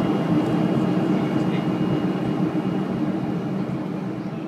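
Cabin noise of a Boeing 737-500 in flight, heard by the window over the wing: the steady rumble of its CFM56-3 turbofan engines and rushing air, with a thin steady whine above it. It grows gradually quieter.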